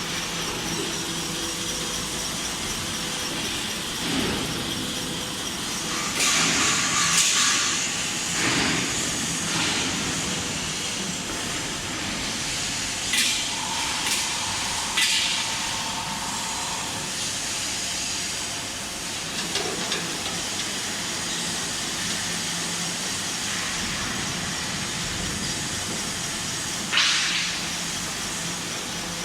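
Heavy-duty CNC flanging machine running with a steady mechanical hum. Several short bursts of high-pitched noise break in, the strongest about six to eight seconds in and another near the end, with a brief whine around fourteen seconds in.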